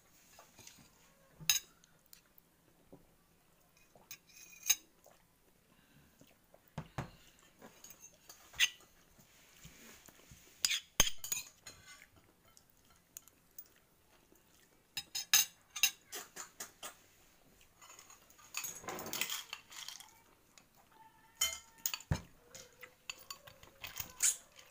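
Forks and spoons clinking and scraping against ceramic plates and bowls during a meal: irregular sharp clinks, some in quick runs, with a longer rustling scrape a little past the middle.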